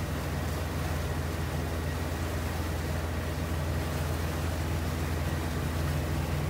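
Inboard/outboard motor of a Weekend 820 cabin cruiser running steadily under way, a low even engine drone.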